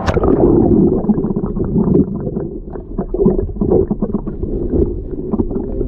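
Muffled water gurgling and sloshing with crackling bubbles, heard through a GoPro being lowered into a pool, after a sharp knock right at the start. Everything above the low rumble is cut off, as when the camera goes under the water.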